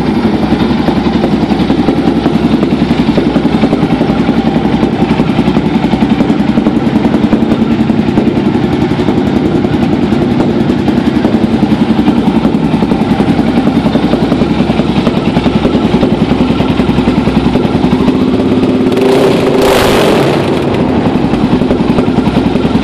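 Yamaha XT660X single-cylinder engine running at idle through a handmade exhaust, a steady, rapid pulsing beat. Near the end comes one brief louder rush.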